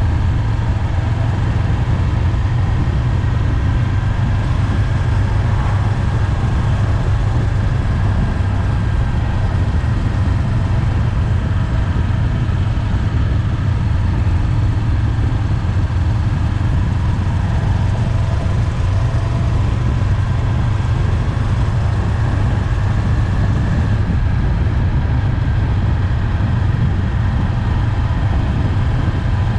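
Honda 400X motorcycle's parallel-twin engine running steadily while riding at an even speed, a constant low drone mixed with road and wind noise, with no revving or shifting.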